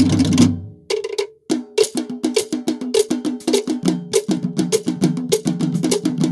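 Fast Polynesian drum music with rapid sharp wooden strokes over deeper drum tones. It breaks off about half a second in. After a single short note and a brief pause, the rapid drumming starts again about a second and a half in.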